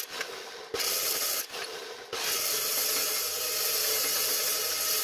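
Cold saw cutting through 1-inch cold-rolled steel round bar. The sound eases off twice in the first two seconds, then holds at a steady cut from about two seconds in.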